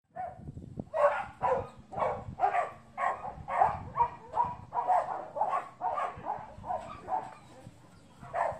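A dog barking repeatedly in short, high-pitched barks, about two a second, with a brief pause near the end.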